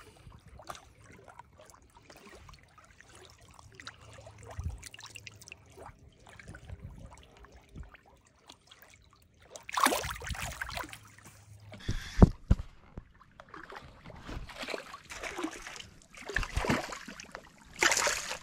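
Shallow lake water splashing and sloshing in several short bursts as a catfish is released by hand, with a sharp knock about two seconds after the first big splash.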